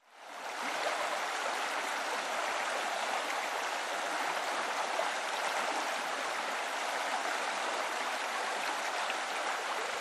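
Small waterfall cascading over rock into a shallow pool: a steady rush of splashing water that fades in over the first second.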